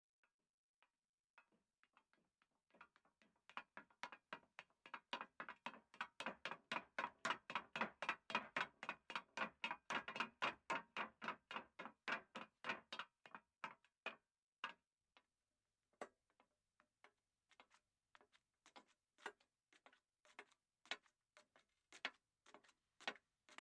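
A long run of sharp taps. They start sparse, quicken to several a second and grow louder through the middle, then thin out and fall quieter in the second half.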